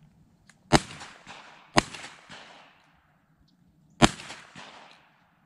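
Shotgun fired three times: two shots about a second apart, then a third about two seconds later, each followed by a rolling echo that dies away over about a second.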